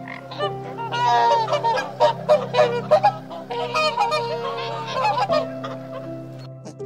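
Domestic goose honking, a rapid run of loud calls starting about half a second in and stopping about five seconds in, over soft background music.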